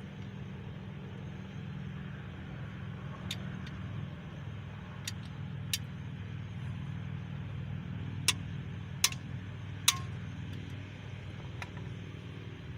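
Sharp metallic clinks, about seven, irregularly spaced and loudest about two-thirds of the way through, over a steady low hum.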